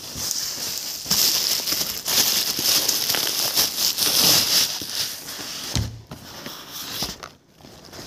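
Plastic courier mailer bag crinkling and rustling as a cardboard shoebox is pulled out of it, loud through the first five or six seconds and then dying down.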